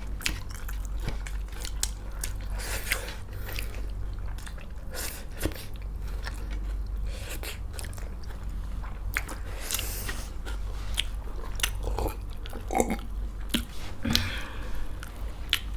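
A person chewing and biting food close to the microphone, with irregular mouth clicks.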